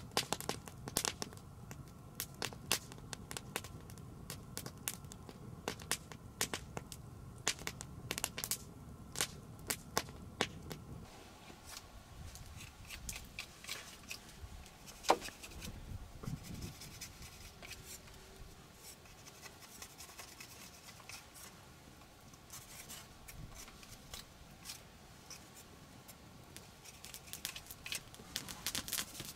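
Knife shaving a wooden stick by hand: crisp scrapes and sharp clicks, thick and fast for the first ten seconds or so over a low rumble, sparser after that, with one loud snap about halfway through.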